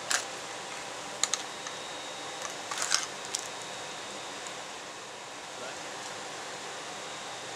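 A few short clicks and rustles from hands handling the cardboard and pins clamping a fish's fin, over a steady background hiss.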